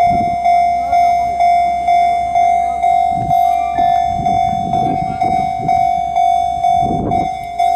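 Railway level-crossing warning bell ringing, a single pitched ding repeated about twice a second, the sign that the crossing is closing or closed for a train. Irregular low rumbling runs beneath it from about three seconds in.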